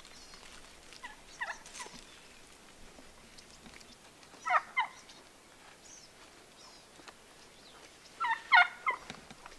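A Gould's wild turkey tom gobbling three times, each rapid rattling gobble louder than the last: a faint one about a second in, a louder one midway and the loudest near the end.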